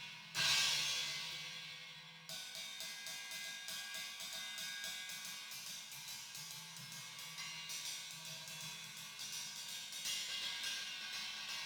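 Stagg 18-inch EX Brilliant china cymbal struck once hard about half a second in, its trashy wash ringing and fading away. From about two seconds in it is played in a fast, steady pattern of even strokes, with a louder accent near the end.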